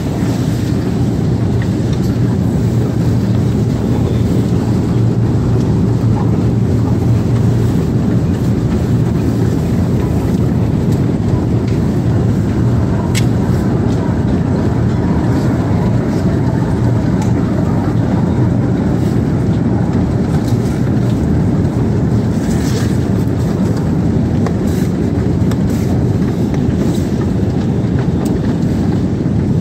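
Escalator running: a steady low mechanical hum and rumble, with a few faint clicks now and then.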